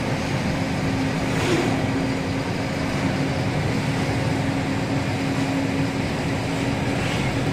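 Lorry on the move: steady engine hum with continuous road noise.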